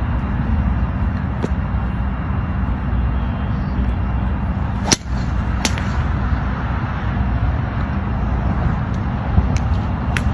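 Steady outdoor noise with a low rumble, broken by a few sharp clicks, the loudest about halfway through, followed by a brief dip.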